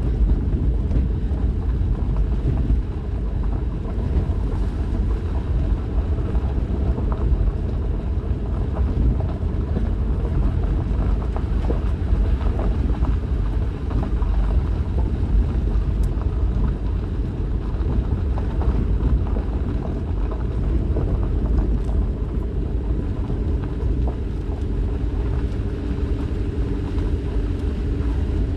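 Vehicle cabin noise on a rough dirt road: steady low engine and tyre rumble with constant small rattles and jolts from the bumpy ride on tires not aired down.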